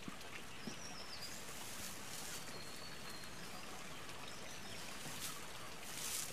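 Mountain forest ambience: a faint, steady rushing hiss, with a few thin, high bird whistles about a second in, in the middle and near the end.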